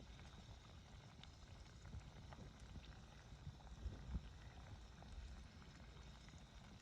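Near silence: a faint low rumble with a few soft scattered ticks.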